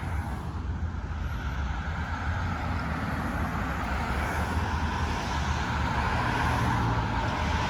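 Road traffic: a steady low vehicle engine rumble with road noise, slowly growing a little louder.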